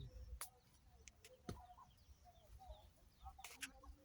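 Faint clucking of domestic chickens in short soft calls, with a few sharp clicks scattered through it.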